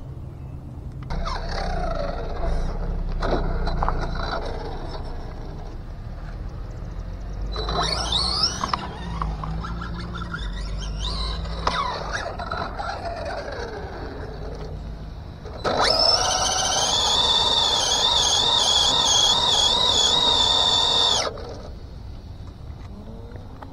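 Team Associated DR10 electric RC drag car's motor and drivetrain whining in rising and falling pitch glides as it accelerates and slows on passes. In the second half there is a louder, sustained wavering whine for about five seconds.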